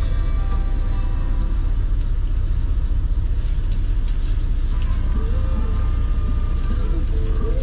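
Steady low rumble of an idling truck engine heard inside the cab.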